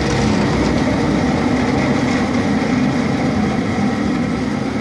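DoALL V-36 vertical bandsaw running with no cut, its motor and blade drive making a steady hum. The blade speed is being changed by hand while it runs.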